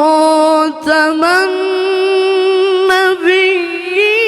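A single voice chanting melodic Quran recitation, drawing out the word 'wa khatam' in long held notes with wavering ornaments. There are two short breaks for breath, and the pitch steps up after each.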